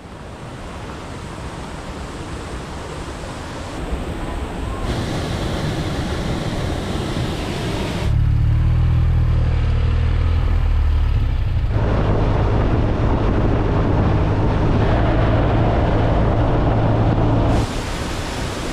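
Steady rushing noise, cut abruptly between several takes, with a strong low steady drone joining it about eight seconds in and dropping away near the end: a BMW R1250RT boxer-twin motorcycle under way, wind and road noise included.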